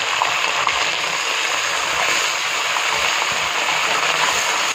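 Water hissing and bubbling steadily in a hot aluminium wok of fried onions in oil, just after being poured in, as it is stirred with a wooden spoon.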